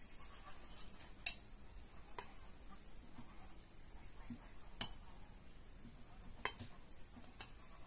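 Serving spoon clinking and scraping against a cooking pot and plate as rice is dished out, with three sharper clinks spread through, the loudest about a second in.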